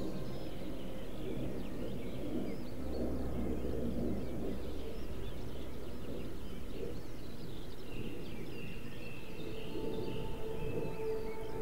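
Several songbirds singing and chirping, over a steady low background rumble.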